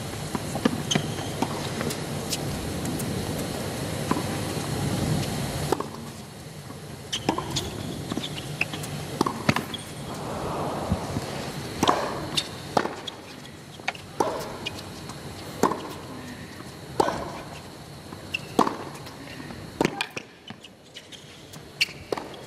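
Crowd applause for the first few seconds, cutting off abruptly about six seconds in. Then a tennis rally on a hard court: sharp racket-on-ball strikes, later coming about every second and a half.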